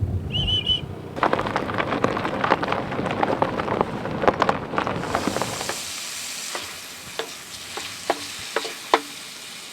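Food frying in a pan: dense crackling, then a steady high sizzle with a few sharp pops. A brief high warbling chirp sounds just after the start.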